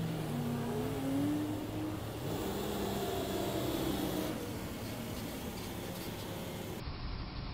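Box truck's engine accelerating through a turn, its pitch rising over the first two seconds, then holding before it fades into steady traffic hum.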